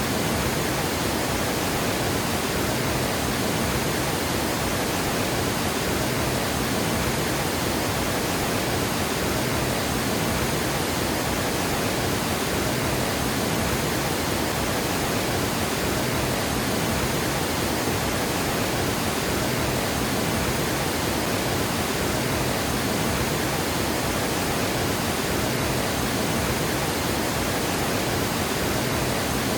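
Water pouring over a dam in a steady, unbroken rush, spread evenly from low to high pitches.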